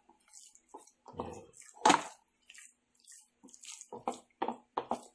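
A bare hand kneading and squeezing a wet burger mixture of ground beef, egg, milk and breadcrumbs in a plastic bowl: irregular short squelches, the sharpest about two seconds in, and a quick run of them near the end.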